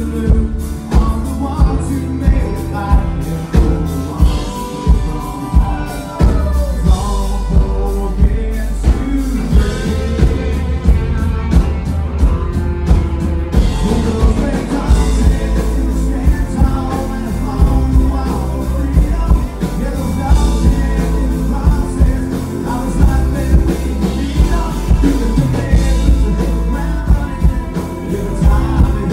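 Live country band playing loud: fiddle, acoustic guitar and drums with a steady beat.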